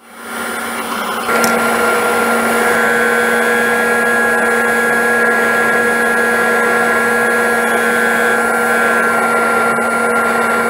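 Performax drum sander running with its dust collector, sanding dog-bone shaped cutouts as they feed through. The steady machine noise comes up to full level about a second in.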